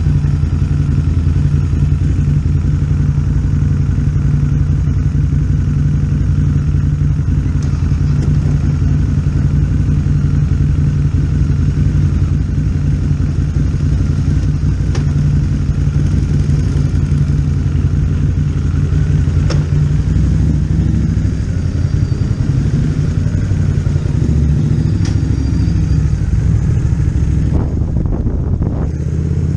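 Motorcycle engine running at a steady, even speed, heard close up from the bike, with a few faint clicks. The sound changes briefly near the end.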